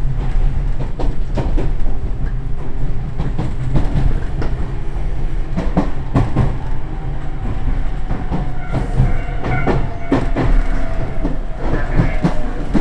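Iyo Railway train running, with a steady low rumble and the wheels clicking over the rail joints. About two-thirds of the way through a thin whining tone comes in and falls slightly in pitch.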